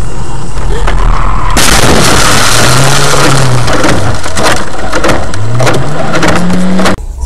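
Car crash heard from the dashcam: a loud impact about one and a half seconds in, then loud crashing and rattling with many sharp knocks, and two low tones rising in pitch, before the sound cuts off suddenly near the end.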